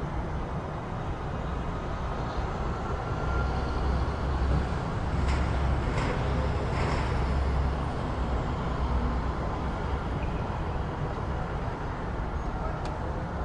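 City street traffic: a steady low rumble of passing vehicles that swells from about three to eight seconds in as a vehicle goes by close. A few short sharp clicks sound over it, two in the middle and one near the end.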